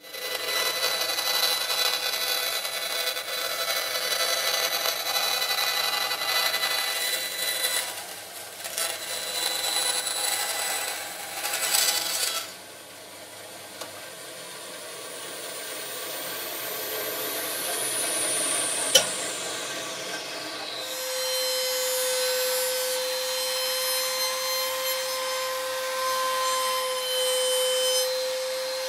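A band saw cuts a plastic pickguard blank, with a loud, steady cutting noise for about twelve seconds. After a quieter stretch with a falling whine, a trim router starts about 21 seconds in and runs with a steady high-pitched hum as a bearing-guided flush-trim bit routes a pickguard to its template.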